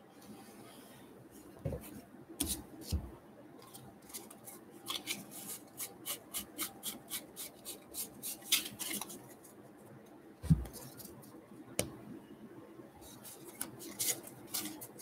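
Stack of baseball trading cards being flipped through one by one by hand: a run of light card snaps and rustles, about two or three a second through the middle, with a few soft thumps of the stack on the table.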